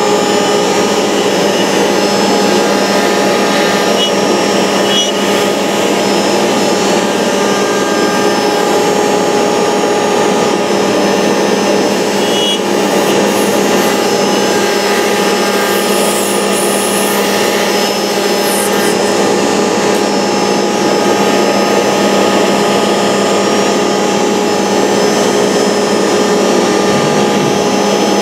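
ShopBot CNC router spindle running steadily as its bit cuts a profile into the sheet, with the dust-collection vacuum drawing through the hose and dust shoe. It makes a steady whine over an even rush of noise, with no break.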